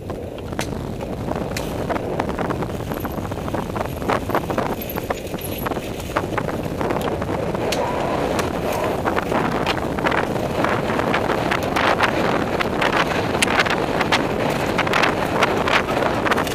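Wind rushing over a helmet camera's microphone and mountain bike tyres rolling fast on a dirt trail, with frequent sharp clicks and rattles as the bike jolts over roots and rocks. It grows louder over the first couple of seconds as speed builds.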